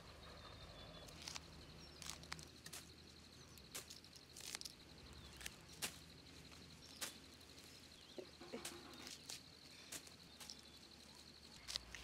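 Hands picking leafy greens: scattered sharp snaps of stems and soft rustling of leaves dropped into a woven bamboo basket, over a faint, steady high-pitched trill.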